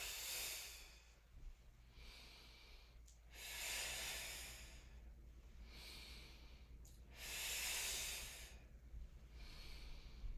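A woman breathing with effort through abdominal curl-ups. There are three long, breathy exhales about three and a half seconds apart, with softer breaths between them.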